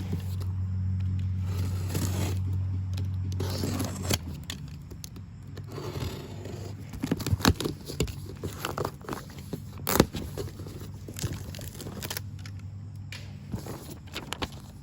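A cardboard box being opened and its packing handled, with scraping, tearing and crinkling and a sharp knock about ten seconds in. A steady low hum runs under the first four seconds and then stops.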